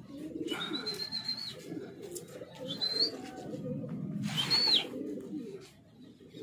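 Pigeons cooing from a rooftop loft, with three short, high whistles that rise and fall, about half a second, two and a half and four and a half seconds in.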